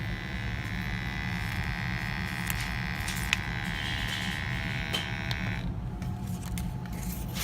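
Two-stage gas furnace running with a steady low rumble, under a high electric buzz that stops suddenly about five and a half seconds in.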